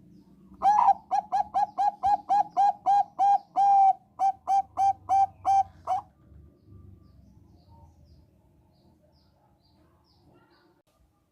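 Zebra dove of the Thai 'Bangkok' perkutut strain singing: a quick run of short, clear cooing notes, about three a second, with one longer note partway through. The song stops after about five seconds.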